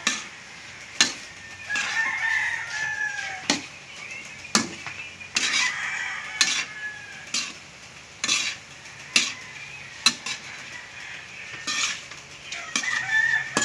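Metal spatula knocking and scraping against a wok as snails are stirred, in irregular sharp clacks. A rooster crows three times: about two seconds in, around six seconds, and near the end.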